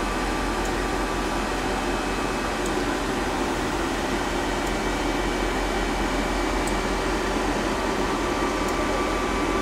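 Steady whir and hum from a powered-up CNC lathe's electrical cabinet, with its cooling fans running and a low electrical hum underneath.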